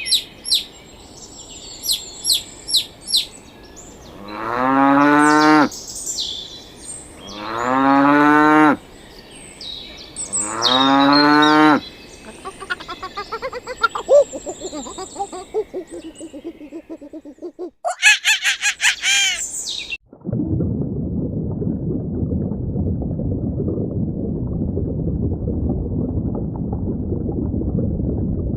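A cow mooing three times, each moo long and drawn out, about three seconds apart, after a few short bird chirps. Other animal calls follow, then a steady low rough noise fills the last third.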